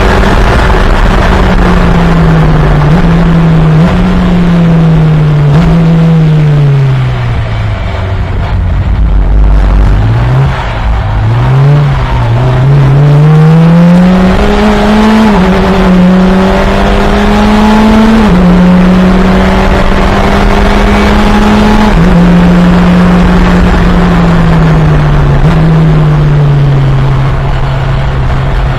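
FunCup race car engine braking hard, its revs falling with three quick blipped downshifts into a slow corner, then accelerating out and changing up through the gears about every three to four seconds, each shift a drop in engine pitch.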